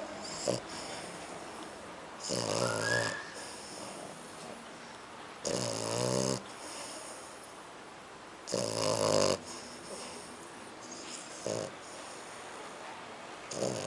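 A sleeping flat-faced dog snoring: five snores, about one every three seconds, the last two shorter.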